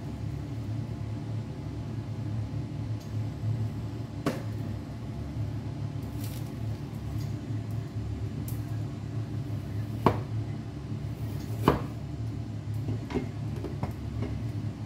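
Steady low hum of a kitchen appliance with a few sharp clicks and knocks of cookware and bottles; the loudest knocks come about ten and twelve seconds in.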